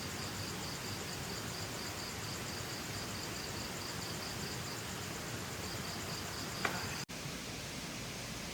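Steady rush of a waterfall stream, with an insect chirping in an even pulse, about three chirps a second, which stops about seven seconds in. A short sharp click sounds shortly before the chirping stops.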